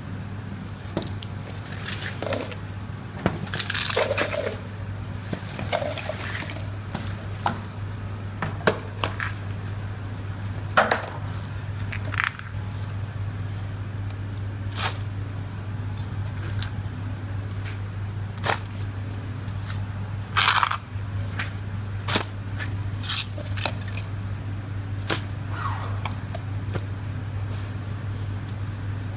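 Rubbish and plastic tubs being cleared off a tiled kitchen floor: scattered clinks, knocks and scrapes at irregular intervals, over a steady low hum.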